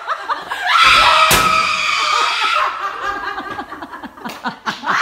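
A woman's long, high scream starts about a second in, with a sharp bang from a metal locker door just after it begins. It then breaks into women laughing, as people are found hiding inside the lockers.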